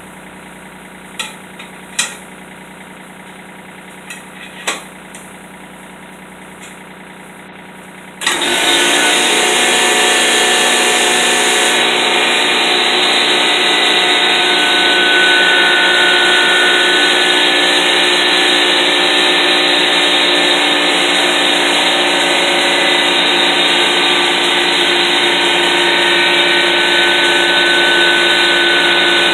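A few sharp metallic clinks of tire irons working a truck tire bead onto its rim, over a low steady hum. About eight seconds in, a loud machine switches on suddenly and keeps running steadily.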